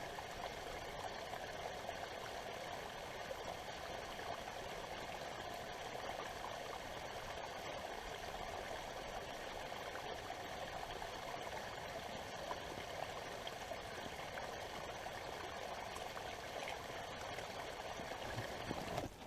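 Small creek running steadily, an even rushing and trickling of water.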